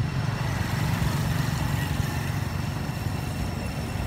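An engine running steadily at a low idle, a constant rumble.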